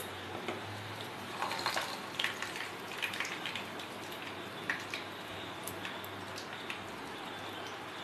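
Hot oil sizzling steadily in a shallow pan as malpua (sweet batter pancakes) fry, with bursts of crackling and spitting from about a second and a half in to about three and a half seconds, and a few more pops later.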